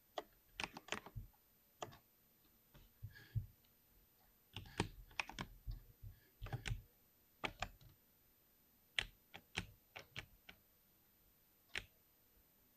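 Typing on a 60% keyboard: irregular runs of key clicks with short pauses between them, the last keystroke a little before the end.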